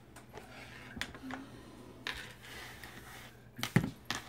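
A few sharp knocks of a canister and hands against a countertop, the loudest a quick cluster near the end, with quiet room tone between.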